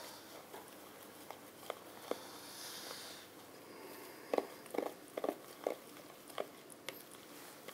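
Fingers raking through damp powdered fishing groundbait in a bait bowl, working in the water: faint soft squelching and crumbling, with a run of small wet clicks around the middle.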